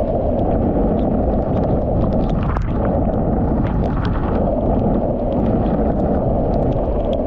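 Wind buffeting an action camera's microphone as a wing foiler rides at speed, a steady loud rush. Over it come many small sharp ticks of heavy rain striking the camera housing.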